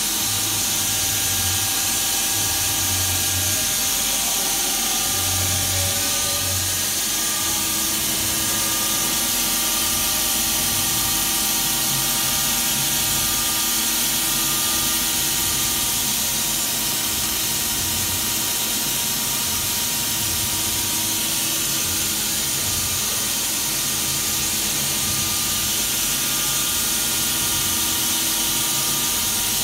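XYZ 710 vertical machining centre running: a steady hiss with several steady whining tones from its motors and drives. A new, lower steady tone joins about seven seconds in.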